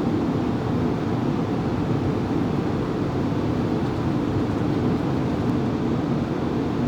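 Steady cockpit noise of an Airbus A380-800 taxiing to its stand after landing: an even rumble and hiss with a faint steady hum.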